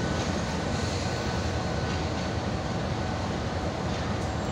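GE U20C diesel-electric locomotive (Pakistan Railways GEU-20) running close by with a steady low rumble.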